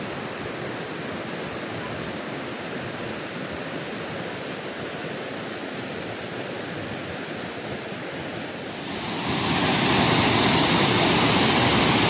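Waterfall: fast water rushing and churning over stepped rock ledges, a steady noise with no break. About nine seconds in it gets louder and brighter.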